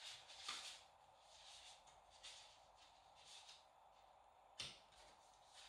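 Faint rustling of paper sheets being leafed through and handled, in several short soft strokes, with a sharper knock about four and a half seconds in.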